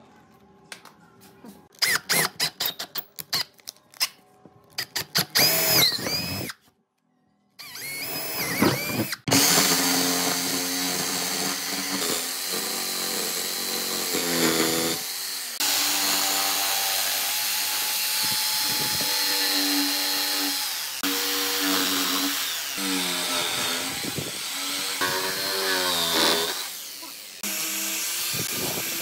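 A power tool run in short bursts, then a jigsaw cutting through a pine tabletop in one long run, its motor pitch dipping and recovering as it follows the curves. Near the end it gives way to a different small power tool.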